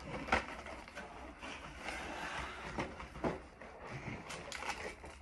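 Pokémon trading cards and their printed packaging being handled on a table: an uneven crinkling rustle with many small sharp crackles and taps.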